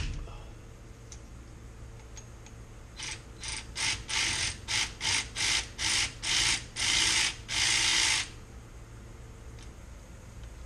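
Cordless ratchet run in about a dozen short trigger bursts, the last few longer, as it works at the rear differential's fill plug.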